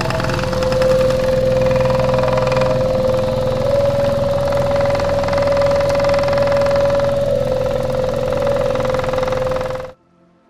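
A carpet-washing machine's motor running with a loud, steady whine over a low hum while dirty brown wash water drains out of its stainless-steel outlet pipe. The sound cuts off suddenly near the end.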